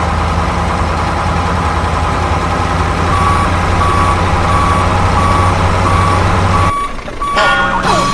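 Truck engine sound running steadily, joined about three seconds in by a reversing alarm beeping roughly every half second. The engine sound cuts off shortly before the end.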